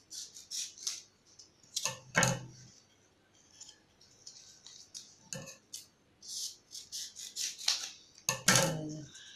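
Scissors snipping through craft foam sheet, with rustling and handling of the foam pieces: a series of short, crisp snips and clicks, the loudest about two seconds in and again near the end.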